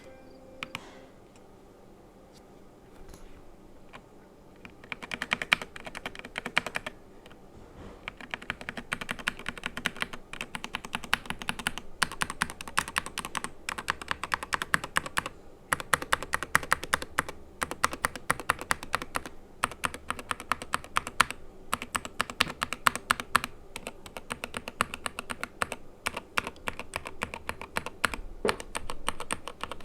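Typing on a SteelSeries Apex Pro TKL keyboard with OmniPoint magnetic switches: a few faint keystrokes at first, then fast runs of key clicks and bottom-outs in bursts of several seconds with short pauses between them.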